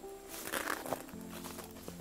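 Piano music, with a brief rustle and crackle of dry bracken and bramble stems pushed through on foot about half a second in.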